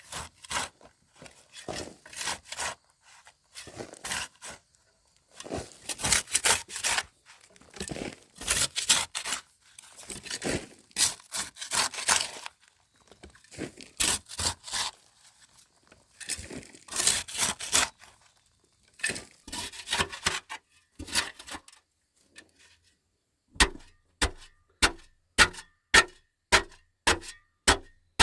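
Wood being worked by hand: bursts of scraping, rubbing and tearing, then, with about five seconds left, a steady run of sharp wooden knocks about two a second.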